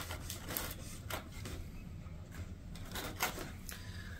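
Faint, irregular light clicks and taps from hands handling a thin black plastic seed-starting tray.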